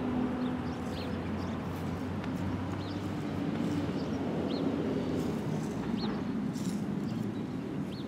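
Outdoor ambience: a steady low hum, with a few short, high bird chirps scattered through it.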